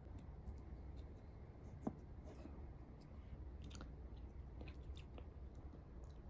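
Faint room tone with a low hum and a few small clicks and taps, the sharpest one just before two seconds in.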